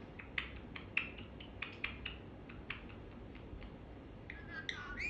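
Pet parrot making a series of short, sharp clicks and chirps, then a few quick rising and falling calls near the end.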